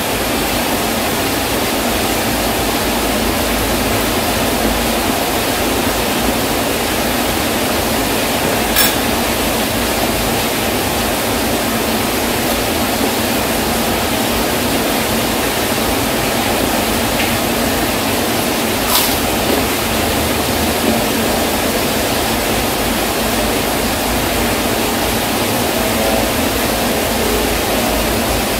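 Heavy rain pouring steadily, an even, constant hiss, with two short clicks.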